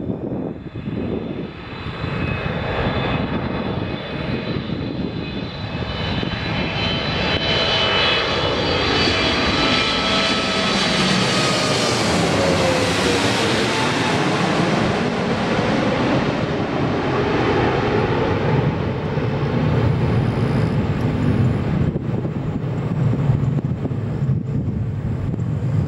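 Boeing 777-300ER's twin GE90-115B turbofan engines on final approach, passing low overhead: a whine of several tones that drops in pitch as the jet goes over about halfway through, then a steady low rumble as it heads away toward the runway.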